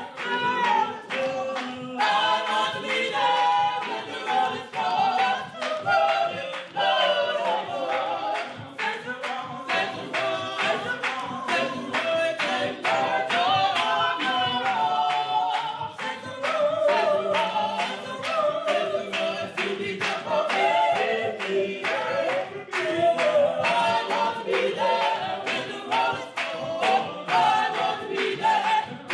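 A cappella gospel choir singing, with hand claps keeping a steady beat.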